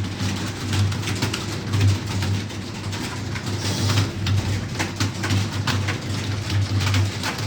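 Many computer keyboards typed on at once in a timed typing test, a dense, irregular clatter of key clicks over a low, pulsing hum.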